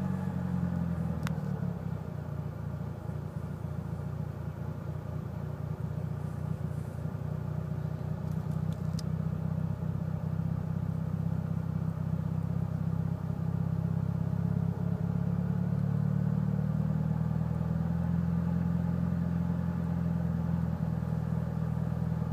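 Mitsubishi Lancer Evolution VIII's turbocharged 4G63 four-cylinder, fitted with aftermarket cams and tuned, idling roughly; the owner cannot find the cause of the rough idle.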